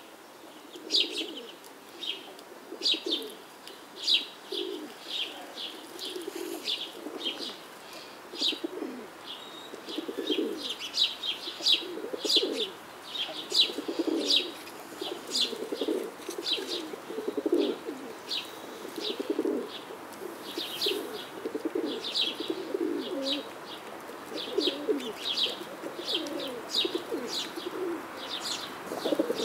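Birdsong: repeated low cooing calls mixed with many quick, high chirps from small birds.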